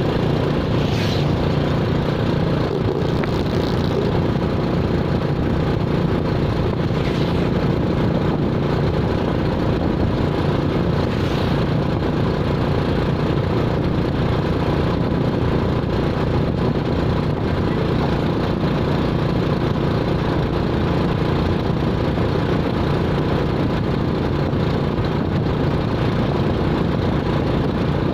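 A vehicle engine running steadily with a constant rumble, with a few faint brief hisses early on.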